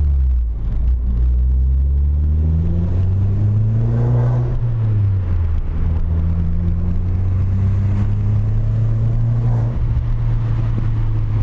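Fiat 500 Abarth's 1.4 turbo four-cylinder with a decat pipe and Ragazzon exhaust, pulling up through the revs for a few seconds, easing off about four and a half seconds in, then running at a steady engine speed.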